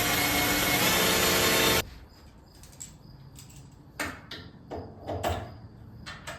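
Power drill running under load, boring through wood, then stopping abruptly about two seconds in. A few light knocks and clicks follow.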